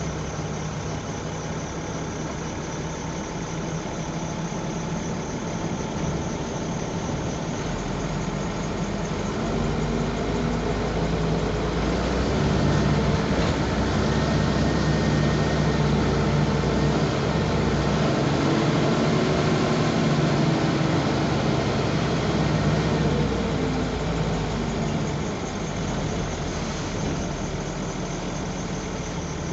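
Bus engine heard from inside the cabin at the back seat, running with a steady low hum. It grows louder about ten seconds in, its note rising and falling for a while, and eases back to a quieter hum after about twenty-four seconds.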